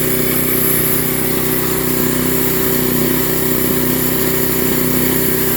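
Portable sawmill's engine running steadily at an even speed, with no cut under way.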